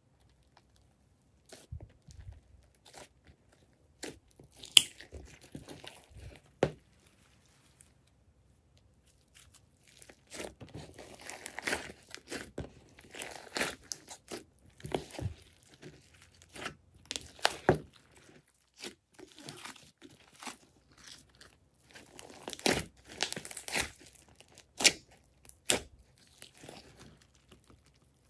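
Hands squishing and kneading clay slime in a glass tray: irregular sticky crackles and pops as the slime is pressed and pulled, with a couple of quiet pauses.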